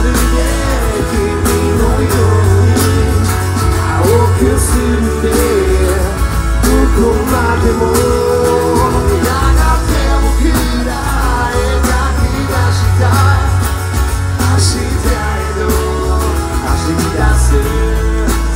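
Live pop-rock band playing loud: a lead voice singing over strummed acoustic guitars, bass and drums.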